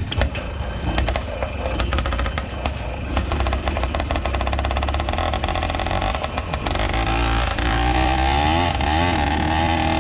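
Zeda80 80cc two-stroke bicycle engine running with a rapid popping beat, its pitch rising and falling as it is revved over the last few seconds.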